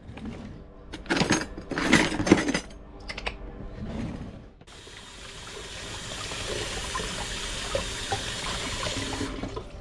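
A kitchen drawer is pulled open and the utensils inside clatter as they are rummaged. Then a sink faucet runs in a steady stream while potatoes are rubbed clean under it by hand, shutting off just before the end.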